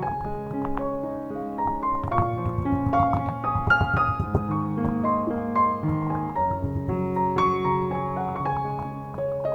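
Background piano music: a gentle melody of single notes over sustained lower notes.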